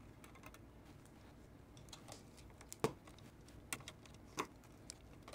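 Faint, scattered small clicks and taps of a screwdriver working the screws of a gas detector's sensor board. The loudest click comes a little under three seconds in, and another near four and a half seconds.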